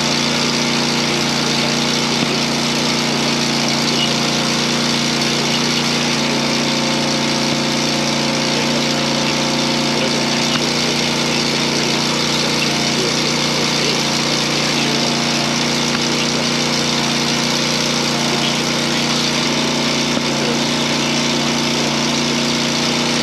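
Log splitter's small gas engine, which the owner believes is a 6.5 horsepower Kohler, running at a steady speed with an even hum and no change in pitch.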